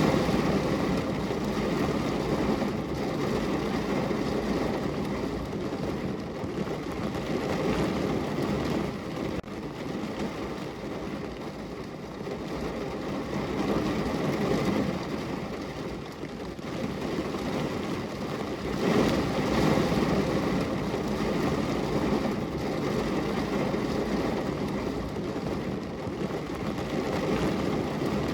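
Heavy rain drumming on a car's roof and windows, heard from inside the car, swelling and easing every few seconds.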